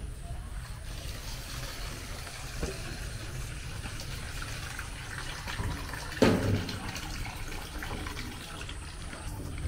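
Water running from an outdoor standpipe tap into a plastic bowl, with a sudden louder thud about six seconds in.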